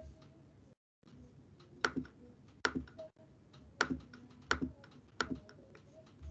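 Clicking on a computer: a series of sharp clicks at irregular intervals, roughly one a second, over faint background hiss.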